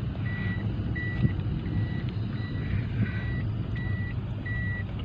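A car's warning buzzer beeping steadily inside the cabin, one short high beep about every 0.7 seconds, over the low steady running of the car's engine.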